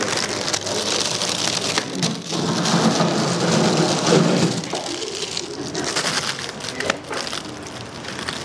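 Volcano vaporizer's fan blowing warm air through the empty herb chamber into its collecting balloon, a steady rushing hiss that is louder in the first half.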